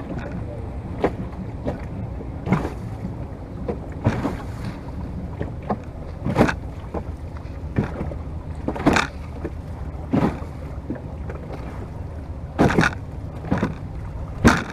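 Choppy water slapping against the wooden hull of a Venetian rowing boat under way, a sharp splash every second or two over a steady rumble of wind and water.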